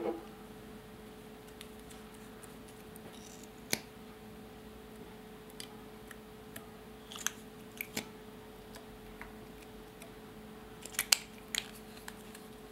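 Sharp clicks and taps of small plastic makeup containers being handled, a nail polish bottle and its brush cap, scattered through and loudest in a quick cluster near the end, over a faint steady hum. A soft knock comes right at the start.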